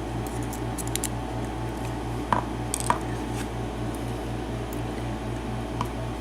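A few small metallic clicks of padlock pins and internal parts being handled and tipped out of an Abus six-pin padlock, over a steady low hum.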